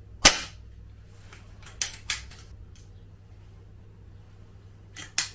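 A sharp crack just after the start, then two pairs of crisp metallic clicks, about two seconds in and near the end: the SMK PR900W air rifle's action being worked and a pellet loaded between shots.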